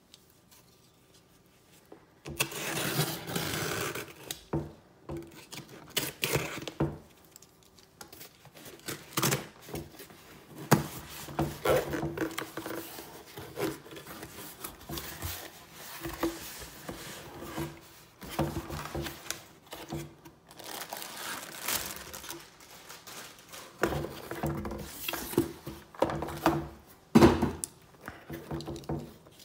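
A cardboard shipping box being opened and unpacked by hand: bursts of cardboard and packaging rustling and scraping, the longest about two seconds in as the taped box is opened, with occasional sharp knocks as the product box is handled on a wooden table.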